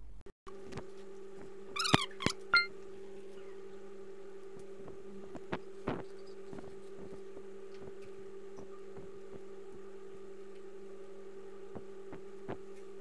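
Steady electrical hum with a few scattered sharp clicks of a computer mouse as text is selected and pasted, and a brief higher-pitched chirp about two seconds in.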